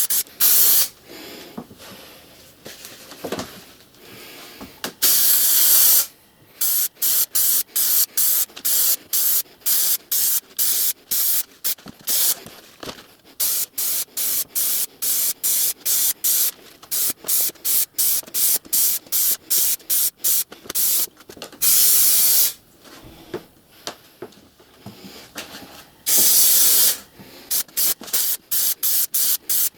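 Upholstery spray adhesive (FIXGRIP 40) hissing out in many rapid short bursts, about two or three a second, as glue is laid onto the headliner panel. A few longer sprays of about a second come a few seconds in, past the middle and near the end, with a quieter spell after the first one.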